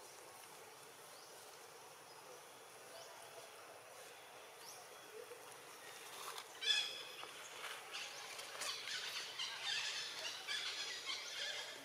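Long-tailed macaques squealing and screeching in high-pitched calls. A sharp call comes a little past halfway in, then calling grows dense toward the end, after a quiet start with a few faint chirps.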